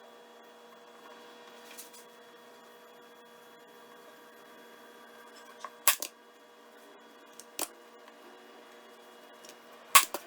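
Hand staple gun firing staples through seat-cushion fabric: a loud snap about six seconds in and another near the end, with a few lighter clicks between, over a steady electrical hum.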